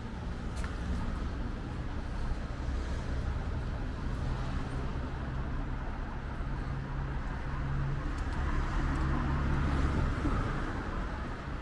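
Street traffic: a car engine running close by with a steady low hum, growing louder about eight seconds in, over the general noise of city traffic.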